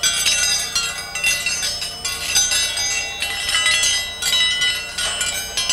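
Metal spoons tied on a string being knocked, giving clanging, bell-like ringing tones with a long ring, struck about once a second. The vibrations carried up the string to the ears make the spoons sound like deep, hollow bells.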